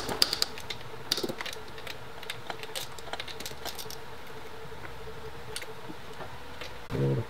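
Scattered metallic clicks and clinks from a ratchet and steel nuts as the cylinder head nuts of a YZ125 two-stroke are loosened and taken off, busiest in the first second and a half, then sparse.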